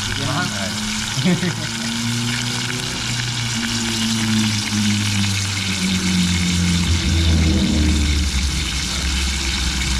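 Shrimp and fish frying in oil in an aluminium pot, a steady sizzle, with a deep hum underneath that shifts in pitch and grows louder in the second half.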